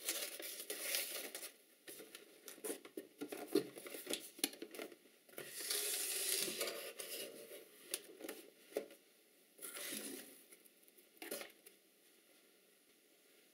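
Packing paper crinkling and a cardboard shipping box rustling and scraping as a boxed camera is pulled out of it, with light knocks. It is busiest in the first half, then tails off to a few short rustles and quiet near the end.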